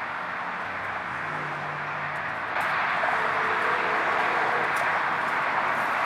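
Steady outdoor background hiss with no distinct events, growing a little louder about two and a half seconds in.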